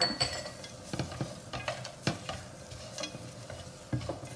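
Mixed nuts and dried fruit being stirred with a spatula in a stainless steel pot while roasting in ghee. The pieces rattle and scrape against the metal, with irregular knocks of the spatula on the pot, one sharp knock at the start and others about two and four seconds in.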